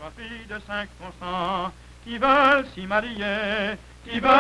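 A singer with strong vibrato begins a French-Canadian folk song in French, holding a few long notes. The loudest note comes about two seconds in.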